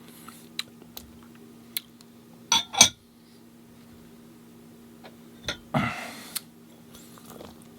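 Tableware being handled: a scatter of sharp clinks and knocks of a utensil against a dish, the loudest about three seconds in, and a brief rustle near the end. A steady low hum runs underneath.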